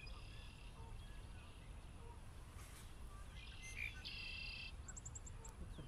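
Songbirds singing over a low steady rumble: a short chirpy call at the start, a buzzy trill about three and a half seconds in, and a quick run of five high ticks near the end.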